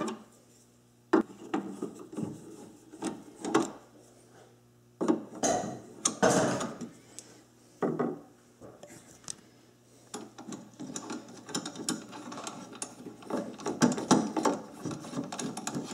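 Screwdriver loosening the screws on an InSinkErator garbage disposal's metal sink mounting ring, with metal scraping and clicking. It comes in short bursts with pauses at first, then turns into steadier scraping and clicking in the second half as the ring is handled.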